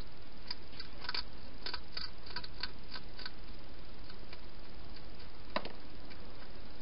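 Wild hedgehog crunching dry food from a bowl: crisp, irregular clicks a few times a second, then a single louder click later on, over a steady background hiss.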